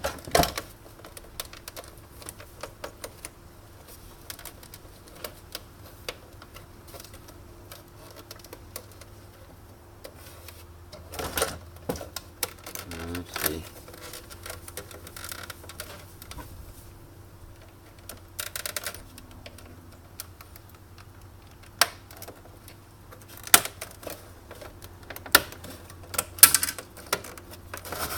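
Scattered clicks, taps and knocks of hand tools and the parts of an espresso machine being worked on during disassembly, with a busier cluster about halfway through and a few sharper knocks near the end, over a steady low hum.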